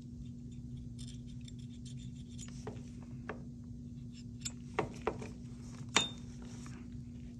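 Scattered light clicks and clinks as a metal dental scaler and a typodont's metal articulator are handled, the sharpest a click with a brief ring about six seconds in, over a steady low hum.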